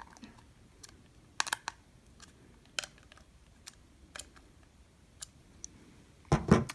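Small, irregular clicks and taps of hands working at the fan screws on a plastic case top, then a louder clatter near the end as the case top is handled and set down on the table.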